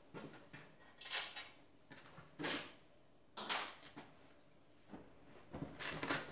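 A series of brief rustling and scraping handling sounds, five or six of them a second or so apart, as hands pick up and work a shop rag.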